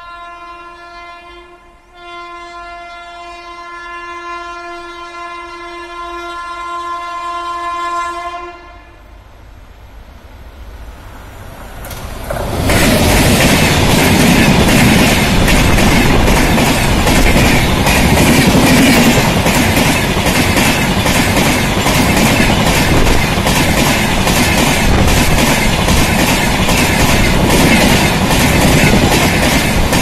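WAP-7 electric locomotive's horn sounding a long steady blast, broken briefly about two seconds in and growing louder as the train approaches, until it stops about nine seconds in. From about twelve seconds in, the express train passes close by, loud, with its coach wheels clicking rhythmically over the rail joints.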